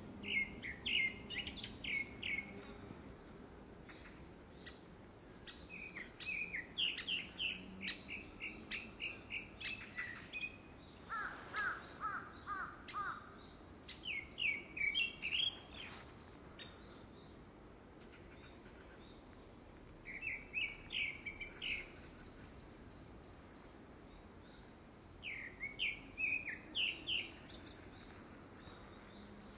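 A male gray-backed thrush singing: about six short phrases of quick, sliding notes with pauses of a few seconds between them. By the season, the uploader takes it for courtship song ahead of a second brood.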